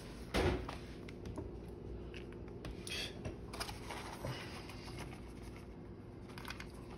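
Light kitchen handling noises: a sharp knock about half a second in, then scattered small clicks and rustles over a low steady hum.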